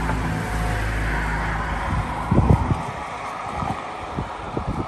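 An engine running steadily, which cuts off about two seconds in. A few knocks follow, then wind noise on the microphone.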